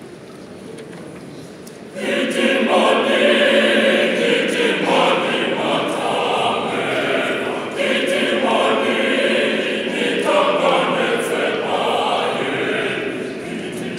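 Mixed choir singing unaccompanied under a conductor, the voices coming in together sharply about two seconds in after low background noise.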